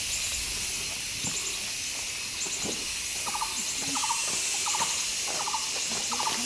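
Steady high-pitched insect hiss of the forest with faint repeated chirps. From about three seconds in, an animal's chattering call of quick pulses repeats about every three quarters of a second.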